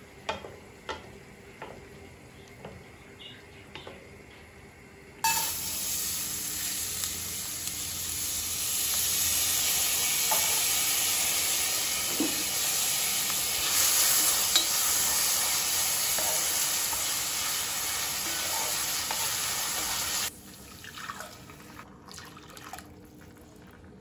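A wooden spoon stirring in a frying pan makes light clicks. About five seconds in, a loud steady hiss starts suddenly from the pot of rice on the gas hob and cuts off about fifteen seconds later, leaving light clicks again.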